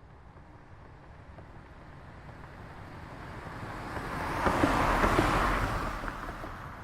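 A car passing by. Its tyre and engine noise builds slowly, peaks about five seconds in, then fades away.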